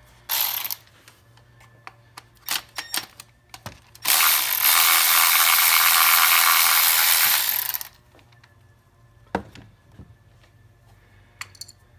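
Power ratchet running for about four seconds, spinning out the bolt that holds down the cylinder 4 ignition coil pack on a Kia 2.4 GDI engine. Before it come a brief rattle and a few sharp clicks of the tool being handled and set on the bolt.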